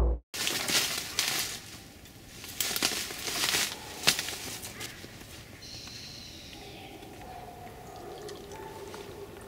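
Barley tea poured from a thermos into a cup, a thin trickle slowly rising in pitch as the cup fills, from about seven seconds in. Before it, louder crackling and rustling with several sharp clicks, one standing out about four seconds in.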